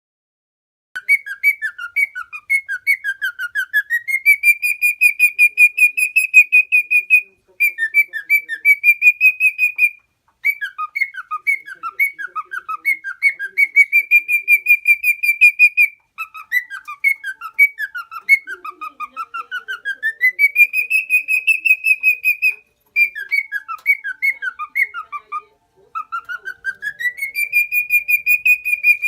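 Male lutino cockatiel singing: phrases of rapid warbled whistles that glide up into a held, trilled high whistle, repeated several times with short pauses, starting about a second in.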